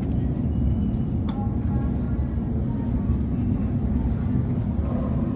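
Elevator cab moving in its shaft: a steady low rumble.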